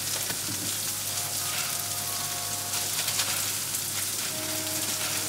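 Steady sizzling hiss of chicken fillet frying in a pan on the stove.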